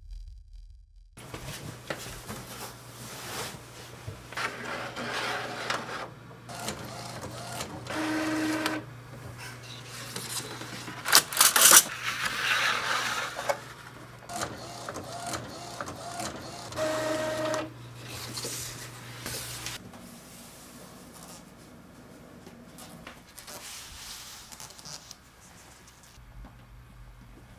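Epson inkjet photo printer at work on a sheet of fine art paper fed from its front manual tray: a steady motor hum with whirring and clicking of the paper feed and print head, a few short tones and a louder burst of mechanical noise about halfway. It goes quieter after about twenty seconds.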